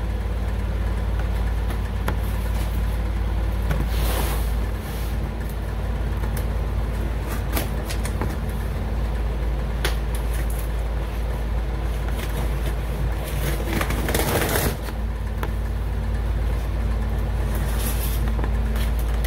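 A knife cutting packing tape and a cardboard box being opened, with scattered clicks and two louder scraping rips, about four seconds in and again near fourteen seconds. A steady low rumble runs underneath.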